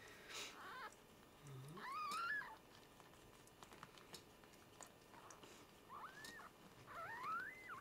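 Newborn Norwegian Forest Cat kittens mewing faintly: four short, high squeaks that rise and then fall in pitch, the second and last the loudest, while their mother washes them.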